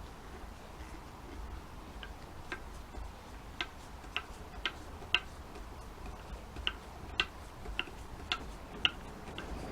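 Light, sharp clicks about twice a second, with a brief pause near the middle, as a screw is turned into wood with a hand-held Torx screwdriver.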